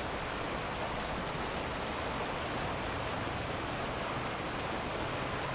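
Rocky mountain stream running over a small rapid close by: a steady, even rush of water.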